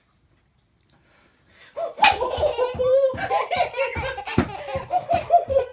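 Baby laughing in a run of short, high-pitched bursts, starting suddenly about two seconds in after a near-silent pause.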